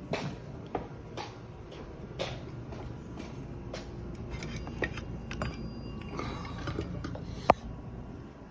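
Scattered light clicks and clinks of small hard objects at uneven spacing, with one sharp, louder click about seven and a half seconds in, over a low steady hum.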